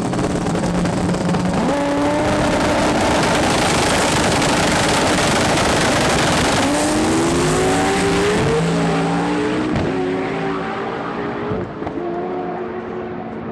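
Two drag race cars, stick-shift class, running loud at the starting line and then launching about six and a half seconds in: engine pitch climbs steeply, drops sharply at gear changes a few times, and the sound fades as the cars run away down the quarter mile.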